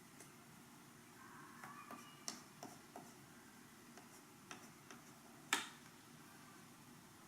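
A few faint, scattered clicks and taps from hands handling the work during a vinyl overlay install, with a brief faint squeak around two seconds in. The sharpest click comes about five and a half seconds in.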